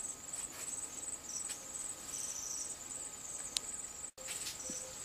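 Crickets chirring steadily, a continuous high-pitched pulsing trill, with a faint click about three and a half seconds in.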